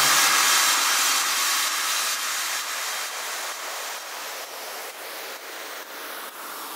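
A white-noise wash from the electronic background track, a hiss that slowly fades after a final hit, with a faint even pulsing in its later part.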